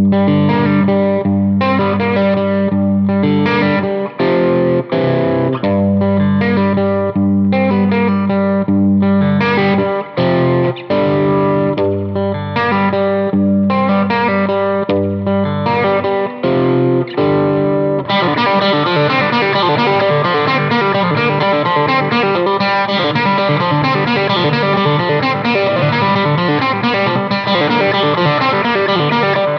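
Overdriven electric guitar riffs through a King of Tone–style overdrive with both sides stacked, played in chugging phrases with short stops. About eighteen seconds in, the playing turns into a busier, unbroken run of notes.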